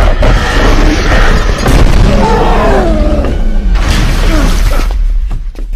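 Dramatic soundtrack music with heavy booms, dying away near the end.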